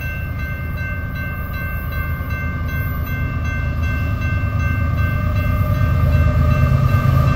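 Grade-crossing warning bell ringing steadily as an approaching BNSF diesel freight train rumbles, growing louder.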